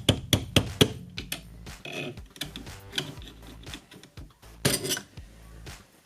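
Quick run of hammer taps, about four a second, in the first second, then scattered metal clinks of tools and parts, and a short scraping rustle near the end.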